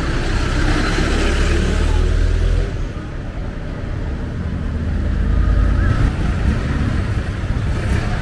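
Road traffic: a steady low rumble of passing vehicles.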